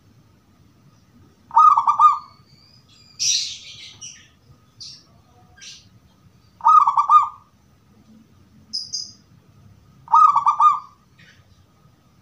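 Zebra dove (perkutut) cooing: three short phrases of quick, clear notes a few seconds apart, with brief high chirps in between.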